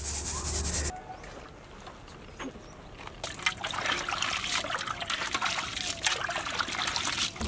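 A hand swishing and rubbing black grapes around in a large tub of salted water to wash them: irregular splashing and sloshing, louder from about three seconds in.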